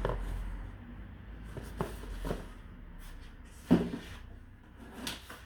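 Scattered knocks and handling noises, the loudest about two-thirds of the way in, as a new palm sander and its packaging are handled during unboxing.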